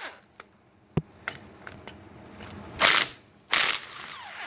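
Milwaukee cordless impact wrench run in two short, loud bursts about three seconds in, hammering on a bolt. A single sharp knock comes about a second in.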